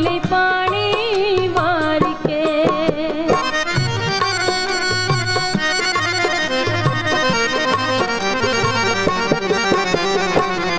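Instrumental interlude of a Punjabi devotional song: a single wavering melody line, joined about three seconds in by a fuller ensemble over a steady drum beat.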